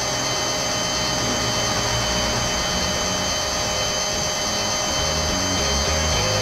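Small electric motors of radio-controlled Huina toy construction vehicles whirring steadily, with a thin, even whine: the crawler crane's winch reeling in its cable to haul a toy excavator out of water.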